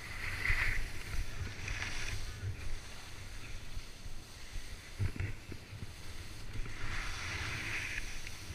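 Wind rumbling on the microphone of a skier's camera, with the hiss of skis carving the snow swelling on the turns: strongest right at the start, again about two seconds in, and over a longer stretch around seven to eight seconds in.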